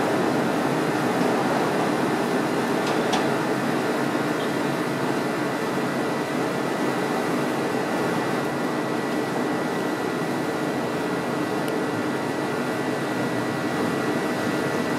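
Steady rumble of a departing Bombardier 5000-series 'L' train running away along the elevated tracks, easing slightly as it recedes, with a faint steady whine.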